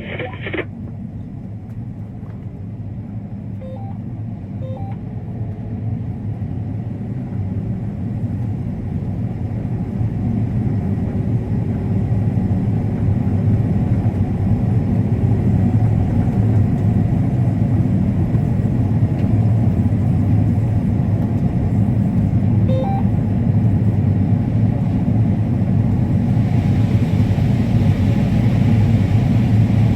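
Combine harvester running: a steady deep drone that grows gradually louder, with a rising hiss over the last few seconds.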